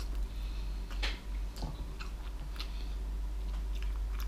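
A man chewing a mouthful of food, with a few short, soft clicks about a second apart.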